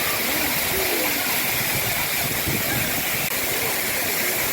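Artificial waterfall running, water falling and splashing in a steady, unbroken rush.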